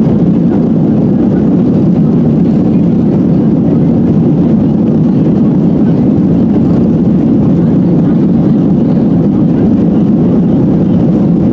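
Steady, loud cabin roar of a Boeing 737-800's CFM56-7B jet engines and the airflow, heard from a seat behind the wing.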